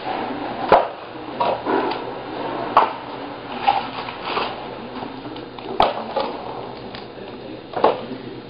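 Split firewood being stacked by hand into the rings of a hand-crank firewood bundler, the pieces knocking against each other in irregular clunks about a second apart.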